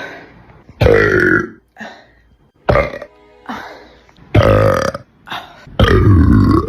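A woman belching again and again, loud and rumbling: three long drawn-out burps, with several short ones between them.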